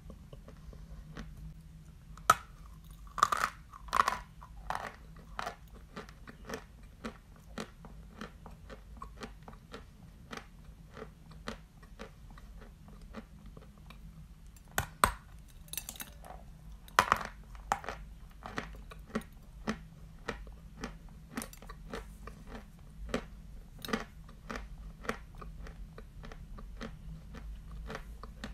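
A person biting and chewing a block of Barsuk chalk: sharp crunches as pieces snap off, the loudest about two to four seconds in and again around fifteen and seventeen seconds, with steady crackly chewing in between.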